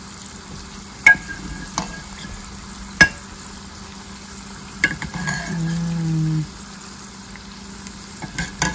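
Hot pig lard and cracklings sizzling in a stainless steel pot while a metal ladle scoops through them, with about five sharp clinks of the ladle against the pot.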